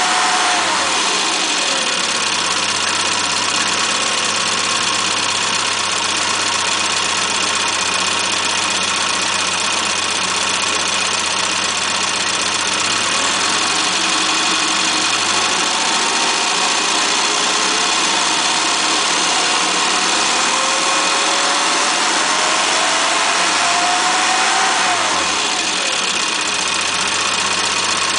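Rover Mini's A-series four-cylinder engine running with an open pod air cleaner fitted, with a loud rushing intake sound. The revs drop back about a second in, climb slowly through the middle, then fall back near the end.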